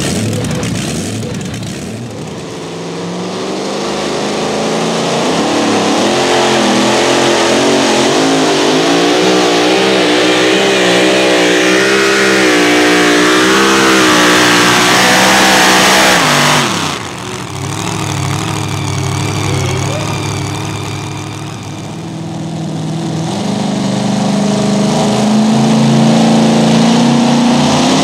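Supercharged engines of super modified two-wheel-drive pulling trucks running at full throttle while dragging a pulling sled. The engine note wavers and climbs through a long pull, then breaks off abruptly about two-thirds of the way in, and a second truck's engine takes over at full throttle.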